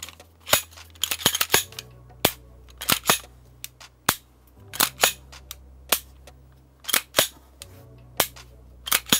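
SIG Air P320 X Carry gas blowback airsoft pistol being worked by hand, unloaded: repeated sharp clicks of the slide and trigger action, singly and in quick pairs, about one or two a second.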